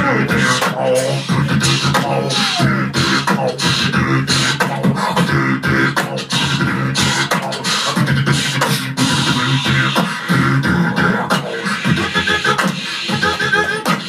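Two beatboxers performing together into handheld microphones: fast vocal kick, snare and hi-hat clicks in a steady beat over a low pitched vocal line, with a few sliding pitched sounds.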